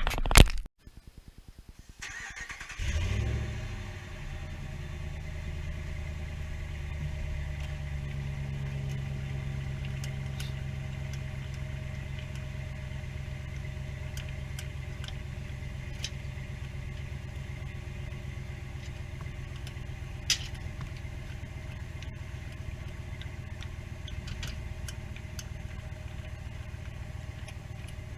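Polaris side-by-side UTV engine starting about three seconds in with a short loud burst, then running steadily at idle. A few faint clicks sound over it, one sharper click about two-thirds of the way through.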